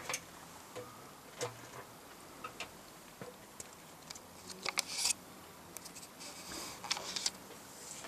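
Handling noise from a handheld camcorder pushed through a cherry laurel hedge: scattered clicks and ticks, with stiff leaves brushing and rustling against the camera, loudest in a short cluster about five seconds in and a patch of rustling soon after.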